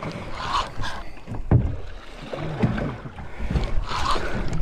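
Knocks and low rumble of a small open fishing boat on the water, with a sharp knock about a second and a half in and another near the end.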